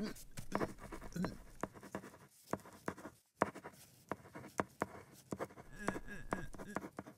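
Brush painting on paper: a quick, irregular series of short scratching strokes and taps, broken by a couple of brief pauses.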